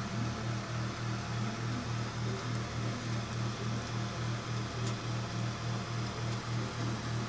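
A machine's low hum that pulses evenly, about four times a second.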